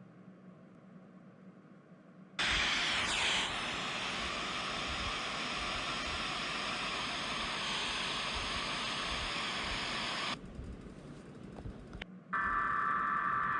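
Off-air broadcast static: a faint low hum, then a sudden loud burst of static hiss about two seconds in that lasts about eight seconds, with a falling sweep near its start. The static then drops to a quieter hiss, and near the end a harsh electronic tone burst begins.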